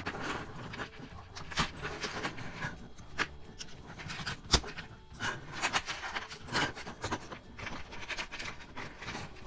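Plastic toy-train pieces being handled and fitted together: irregular clicks and rustling, with one sharp click about halfway through.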